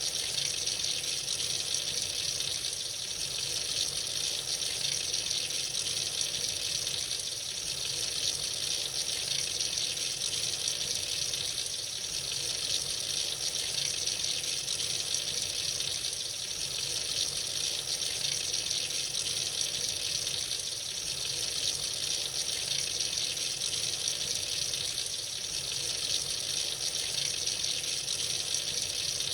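Tap running freely into a sink: a steady, unbroken stream of water, hissing and splashing.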